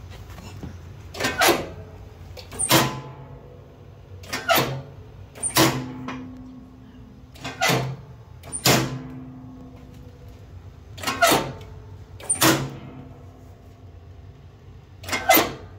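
Actuator-driven chute block door on a Scag V-Ride mower deck being run up and down: a sharp metal clank, then another about a second later, four times over, with a fifth clank near the end. The steel deck rings briefly after each clank, over a steady low hum.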